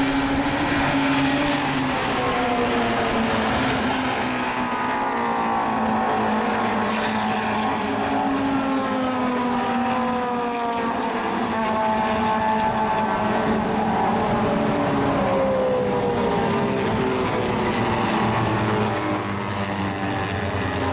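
A field of race cars, classic Mini Coopers among them, running past at racing speed. Several engine notes overlap, each rising and falling in pitch as the cars accelerate and pass.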